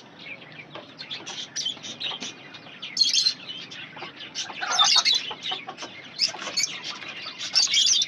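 Caged aviary birds chirping rapidly and continuously, with louder bursts of calls about three seconds in, around five seconds in, and near the end.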